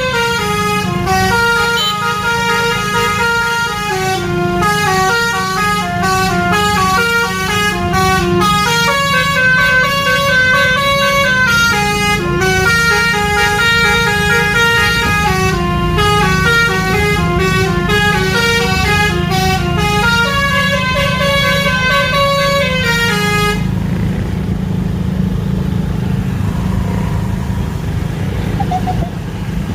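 Basuri 'telolet' multi-tone bus horn playing a quick tune of stepped notes that runs for about twenty-three seconds and then cuts off, over the steady low hum of the bus engine running.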